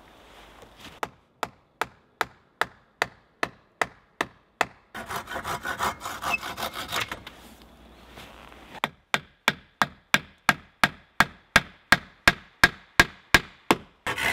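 Hand saw cutting into a wooden pole rail to start a notch: a run of short, sharp strokes about two to three a second, with a stretch of continuous rasping sawing in the middle.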